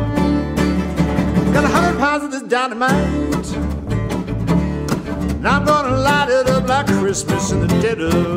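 Acoustic bluegrass-roots trio playing: a fiddle carries the lead with sliding, wavering notes over strummed acoustic guitar and an upright double bass. The low end drops out briefly about two seconds in, then the band comes back in full.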